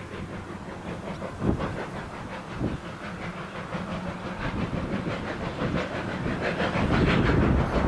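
LNER J27 0-6-0 steam locomotive working a train, its exhaust beating in a quick, steady chuffing rhythm over the rumble of the train, growing louder about seven seconds in.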